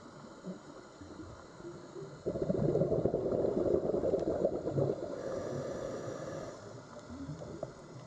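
Underwater ambience of bubbling, gurgling water, which turns suddenly louder about two seconds in and eases off again over the last few seconds.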